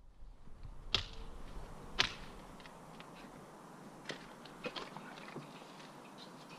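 Footsteps on flattened cardboard and debris: two sharper knocks about one and two seconds in, then lighter scattered steps and clicks.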